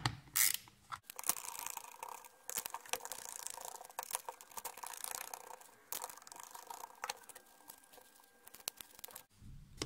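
Screws being backed out of the plastic case of an 18 V lithium battery pack, with scraping, creaking plastic and many small clicks as the case is handled and pulled open.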